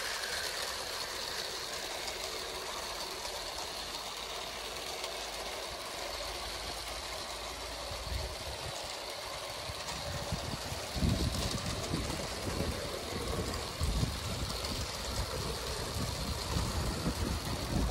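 Vintage Bassett-Lowke LMS 2P O gauge tinplate electric locomotive and coaches running steadily along 3-rail garden track. From about ten seconds in, wind buffets the microphone in low, irregular gusts.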